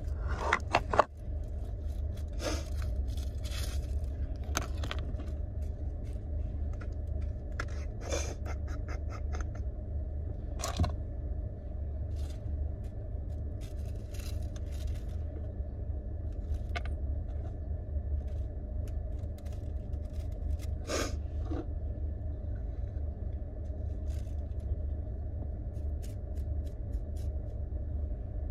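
Rolling paper being handled and twisted as a joint is rolled by hand: scattered crinkles, rustles and small scratchy clicks, loudest right at the start. Under it runs the steady low rumble of a car.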